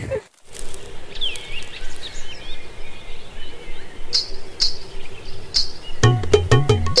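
Steady outdoor hiss with birds chirping a few times in the first half, and three short sharp sounds near the middle. Plucked-string music with a bass line starts about six seconds in.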